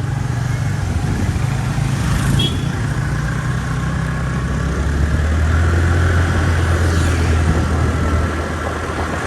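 Steady low drone of a vehicle engine, shifting lower in pitch about five seconds in.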